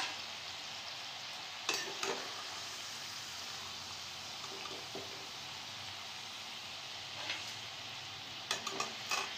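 Masala-coated peas deep-frying in hot oil in a kadhai, fried through: a steady sizzle. A metal slotted spoon scrapes and clinks against the pan about two seconds in, once near seven seconds, and several times near the end as the peas are stirred and lifted out.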